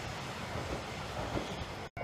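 Hankai Tramway streetcar running along its rails, a steady low rumble of wheels on track. It cuts off abruptly just before the end.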